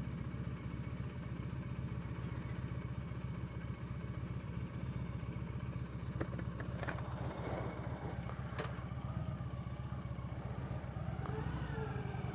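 Victory Vegas V-twin motorcycle engine running steadily at low revs, with faint traffic noise around it.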